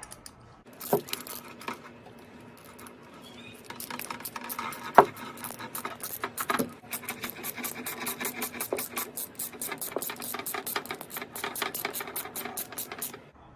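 Ratchet socket wrench clicking rapidly as a small nut is run down tight on a bolt, with a few knocks of the tools against the bracket.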